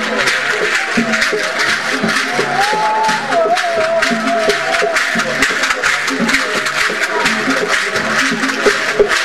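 Live percussion music for a masquerade dance: steady repeated drum beats under dense, rapid rattling strikes. A single high, wavering note is held briefly from about a quarter to about half of the way in.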